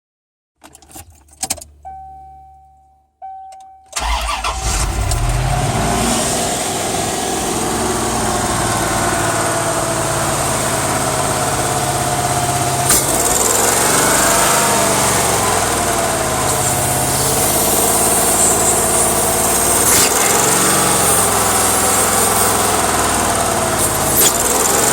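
A 1993 C4 Corvette's V8 starts about four seconds in, after a few clicks and a brief steady tone, then idles, its pitch wavering slightly now and then. The owner suspects a vacuum leak at the intake manifold gasket.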